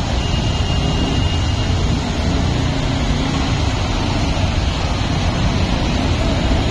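Motorbikes and scooters riding through floodwater in an underpass: a steady rumble of engines and moving water.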